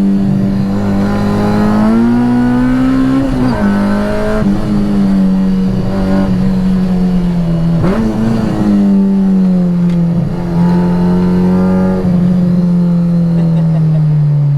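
K20 2.0-litre inline-four of a K20-swapped Honda Integra Type R (DC2) running hard on a track lap, heard from inside the car. The engine note climbs and then drops sharply about three and a half seconds in, dips briefly around eight seconds, then falls slowly as the car slows near the end.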